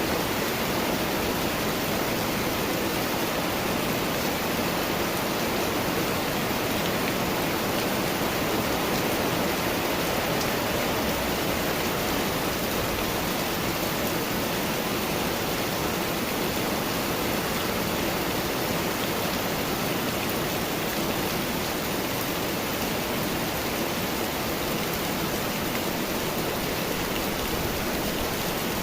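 Steady rain falling, an even, dense hiss that holds at one level throughout.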